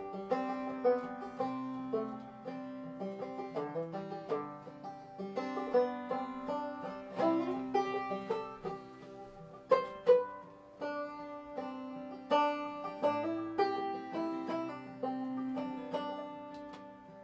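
Acoustic guitar and banjo playing an instrumental folk passage together, with many quick plucked notes over strummed chords and no singing.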